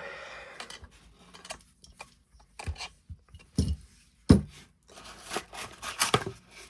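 Handling of a cardboard box and its packaging: a few short knocks as parts are set down, then rustling and rubbing of packaging near the end.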